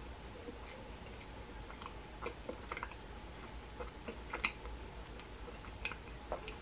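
Faint chewing of a chocolate macaron: scattered soft mouth clicks and crunches over a faint steady hum.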